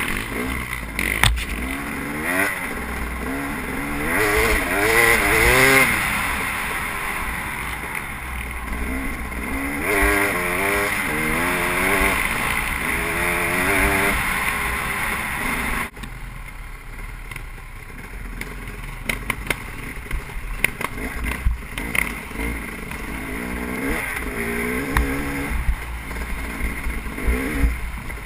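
KTM enduro motorcycle engine revving up and down over and over as the bike is ridden off-road, with scattered sharp knocks from the rough trail. The engine drops suddenly quieter a little past halfway, then picks up again.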